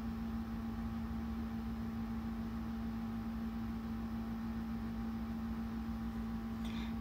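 Steady background hum: one constant low tone over faint hiss, with no distinct events.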